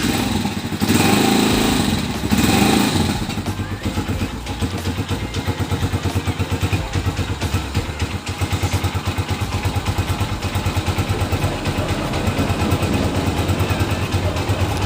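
Skygo Earl 150's 150 cc single-cylinder engine running on a cold start, after stalling once: revved twice in the first three seconds, then idling with an even, rapid pulse from the exhaust.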